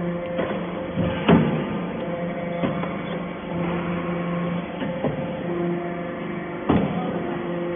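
Hydraulic metal-shavings baler running: a steady machine hum with light clatter, broken by a sharp knock about a second in and another near the end.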